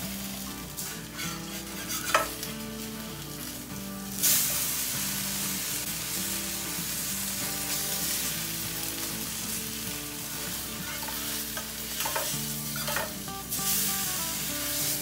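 Cobia fillet searing skin-side down in hot oil in a pan, sizzling steadily. The sizzle swells about four seconds in and again near the end. There is a short click about two seconds in.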